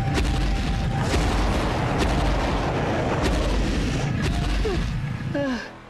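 Heavy booming thuds of a giant dinosaur's footsteps over a deep continuous rumble, roughly one thud a second, fading out near the end.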